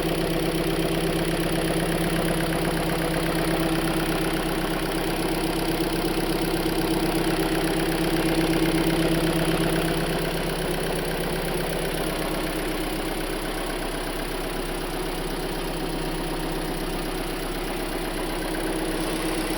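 Hyundai Elantra engine idling steadily with a light, even tick, tick, tick. It gets a little quieter about halfway through.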